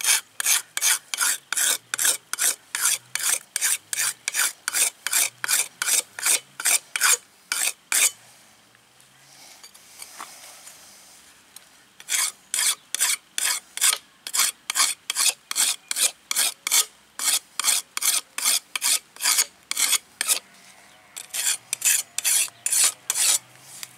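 A whetstone scraped by hand along the steel cutting blade of a brush cutter to sharpen it: quick rasping strokes, about three a second, in three runs with a few seconds' pause between them.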